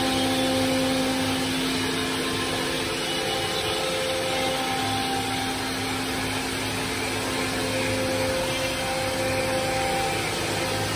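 Chencan M1325AG CNC router's spindle running steadily as it routes a wooden sheet: an even motor whine with a constant low tone.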